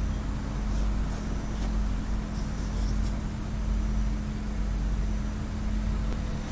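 Hand embroidery: a needle and embroidery floss are pulled again and again through fabric held taut in a hoop, giving soft rubbing swishes with a few faint needle ticks, over a steady low rumble.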